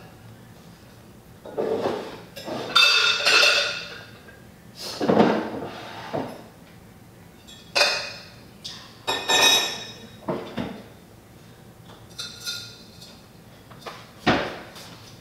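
Hard household objects being handled and set down: irregular clatters and knocks, some with a short ringing clink like ceramic or glass, spread through the whole stretch.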